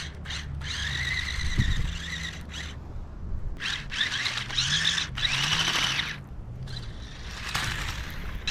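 Small electric motor of a cheap toy RC car whining as it drives, in spurts of a second or two with short breaks. Its pitch wavers up and down as the throttle changes, over a steady low rumble.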